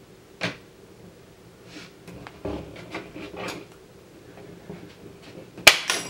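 Small metal clicks and scrapes of snap ring pliers working a steel retaining ring. Near the end there is a sharp metallic snap with brief ringing as the ring springs off the plier tips, another failed attempt to seat it.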